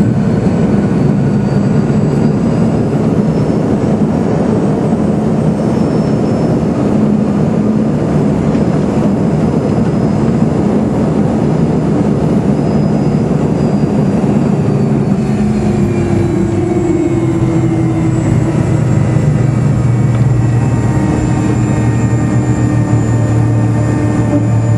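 Cabin noise of an MD-82 rolling on the ground after landing. The rear-mounted Pratt & Whitney JT8D turbofans give a steady whine whose tones drift slowly in pitch, over a continuous low rumble of the airframe and wheels on the pavement.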